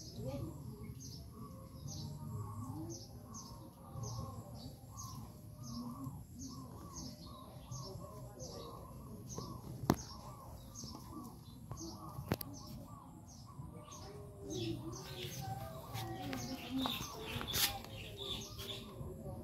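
Birds chirping over and over, about two short high chirps a second, with a couple of sharp clicks around the middle.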